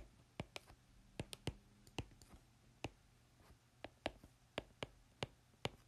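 Pen on paper during handwriting: an irregular scatter of faint sharp ticks as the pen tip strikes the page, over a faint steady low hum.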